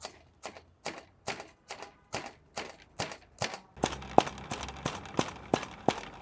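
Wooden pestle pounding smoked fish and green vegetables in a mortar: a steady beat of about two and a half strikes a second. The strikes become sharper and louder about four seconds in.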